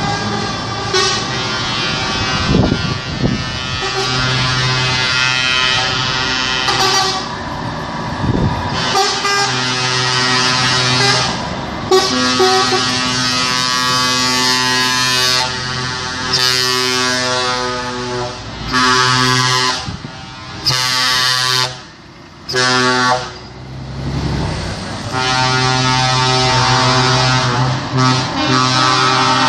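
Truck air horns sounding in long, overlapping blasts, one horn taking over from another, with a few short breaks near the last third.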